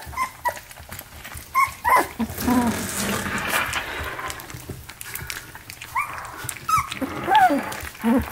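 Three-week-old puppies whining and squeaking in short, falling cries while feeding, with a lower, longer cry from about two seconds in.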